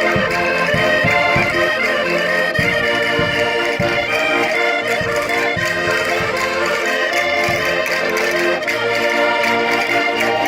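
Minho concertinas (diatonic button accordions) playing a Portuguese folk dance tune, with dense held chords and melody over a regular low beat.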